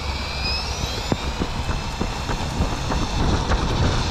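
Electric motor of a motorized LEGO Technic Batcycle whining as it drives the rear wheel: its pitch rises in the first second as the bike speeds up, then holds steady. Scattered sharp clicks and a low rumble run underneath.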